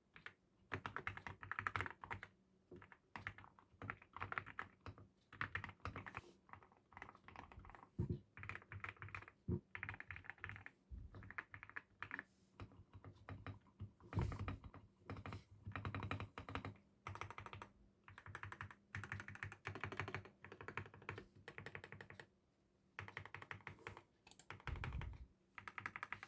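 Typing on a GMK81 hot-swap mechanical keyboard fitted with linear switches, as a switch sound test: quick runs of fairly quiet key clicks in short bursts with brief pauses between them.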